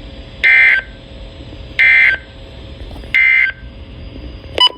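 Emergency Alert System end-of-message data bursts: three short, identical digital warbles over steady hiss, sounded after the spoken warning is over. A single short electronic beep follows near the end.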